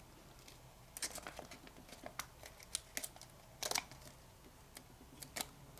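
Kami origami paper crinkling and rustling under the fingers as a flap is opened and swivel-folded, in a scatter of short crinkles, the loudest a little under four seconds in.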